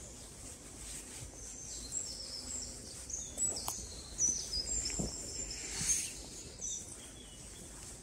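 A small songbird singing in woodland: a quick series of short high chirps and whistles, with a few soft footsteps on the forest floor.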